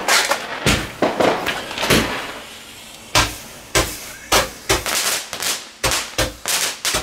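Fireball Roman candle firing its shots one after another: about a dozen sharp pops, roughly one every half second, with a brief gap a couple of seconds in.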